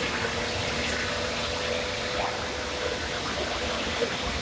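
Steady roaring hiss of thermal power plant boiler and burner machinery, with a faint steady hum running through it.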